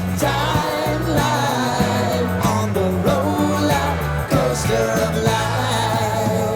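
Background pop-rock song: a band with bass notes under a melodic lead line.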